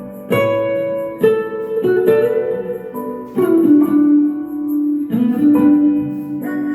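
Guitar playing a slow succession of chords, each struck and left ringing, changing about once a second.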